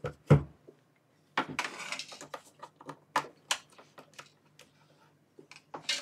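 A laptop being handled: a knock as it is turned over and set down on a cloth, a brief scuffle, then scattered plastic clicks and taps as the lid is opened and the machine is woken.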